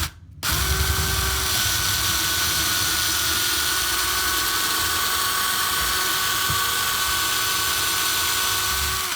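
Electric drill with a 3/16-inch bit boring a screw hole through a wooden cabinet door: a short blip of the trigger, then the motor runs steadily under the trigger held down.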